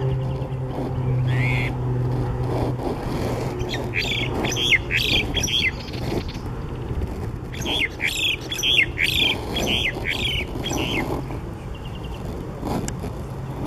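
Common myna calling in two runs of quick, varied chirping notes, the first about four seconds in and the second from about eight to eleven seconds, over a steady low hum.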